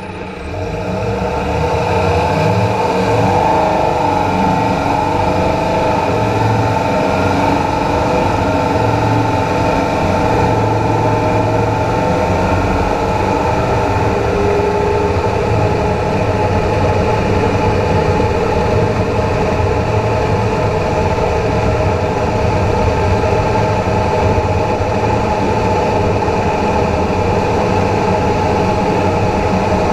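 Running noise from underneath a Dodge Ram pickup driving at speed: tyres on the road, the front axle and driveline turning, and air rushing past, a steady rumble with a constant whine. It swells over about the first second, then holds even.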